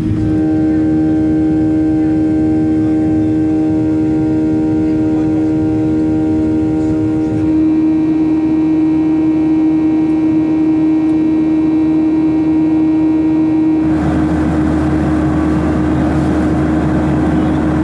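Jet airliner engines heard from inside the cabin: a loud, steady hum with a strong low tone over a broad rumble, its sound changing abruptly about seven seconds in and again about fourteen seconds in.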